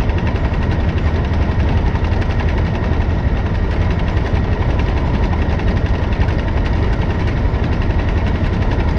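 Mack MP8 inline-six diesel in a loaded semi truck, heard from inside the cab, pulling steadily under load while misfiring unevenly and shaking the whole truck. The driver suspects a fuel problem; the truck had logged a low fuel pressure code, and new fuel filters have not cured it.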